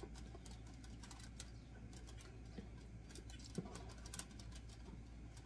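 Faint scattered crackles and ticks of marinated chicken pieces sizzling on hot foil over a gas grill set on high, with a slightly louder click about three and a half seconds in, over a low steady hum.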